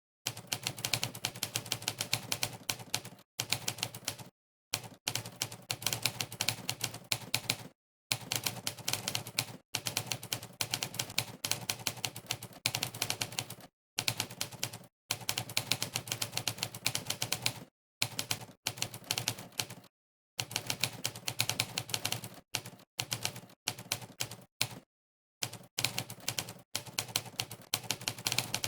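Monkeytype's 'typewriter' keypress sound effect: sampled typewriter key strikes clicking rapidly, one per keystroke of fast typing. The strikes come in runs of a second or several, broken by brief dead-silent pauses.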